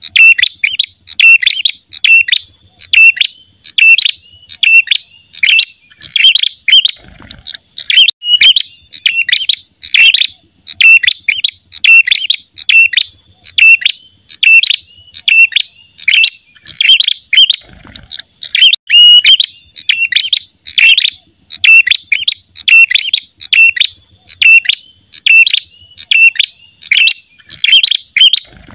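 Male ashy tailorbird giving its sharp, loud fighting call over and over, about twice a second without a pause. It is the agitated territorial call that bird-keepers play to lure birds in or to teach caged birds.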